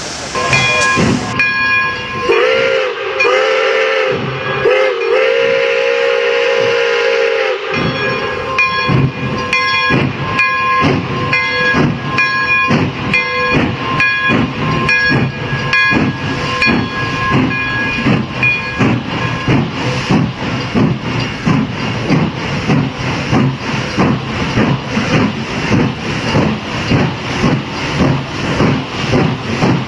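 The steam whistle of Pere Marquette 1225, a 2-8-4 Berkshire steam locomotive, blows a long chord whose pitch bends as it is played. It then gives way to the locomotive's exhaust chuffing in an even beat of about two a second as it works under steam. The whistle sounds on faintly through the first part of the chuffing before the chuffing carries on alone.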